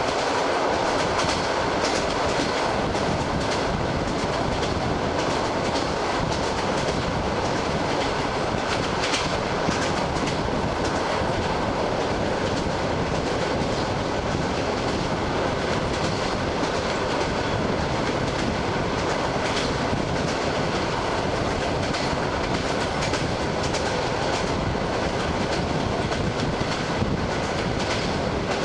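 ED9M electric train running at speed, heard from a carriage window: a steady rumble of wheels on rail, with the clack of the wheels over rail joints and a sharper knock every few seconds.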